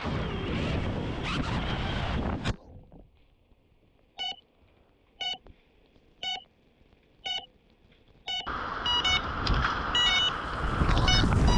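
Electronic warning beeps from FPV drone gear after a crash with receiver signal lost, sounding about once a second, each short and two-toned. Near the end a rushing noise comes back and the beeps come quicker.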